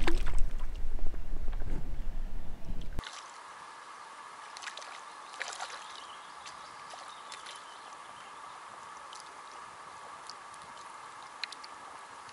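Water lapping at the shoreline under a loud low rumble of wind on the microphone. After about three seconds this cuts to a quiet open-water ambience with a few faint high chirps and clicks.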